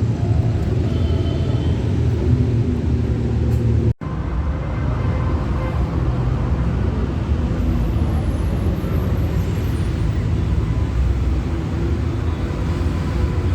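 Steady background road-traffic noise with a low rumble, broken by a sudden brief cut in the sound about four seconds in.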